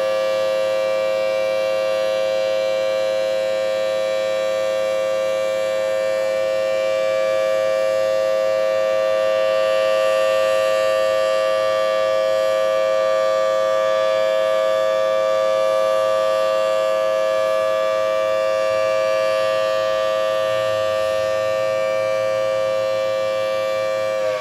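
Thunderbolt 1000T civil defense siren blowing a loud, steady held tone with no rise and fall of volume. The siren is failing to rotate, so its sound never sweeps past.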